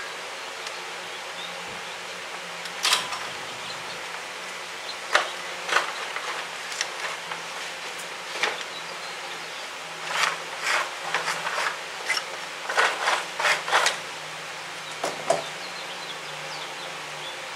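A steady low buzzing hum with scattered short clicks and clatters, typical of tools and parts being handled during hands-on repair work. The clicks come in a quick run about ten to fourteen seconds in.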